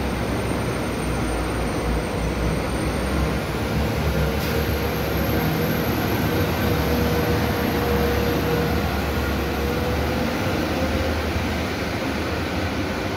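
Diesel multiple unit pulling out past the platform of an underground station: engine and wheels running in a steady rumble with a thin whine over it, easing off slightly near the end as it heads into the tunnel.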